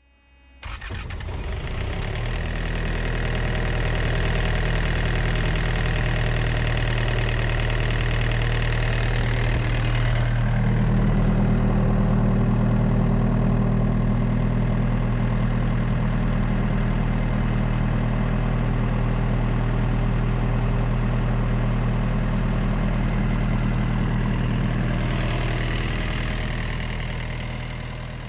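Small diesel engine of a refrigerated trailer's cooling unit starting up and then running steadily. About ten seconds in its note changes as it shifts to a different running speed, and it fades out near the end.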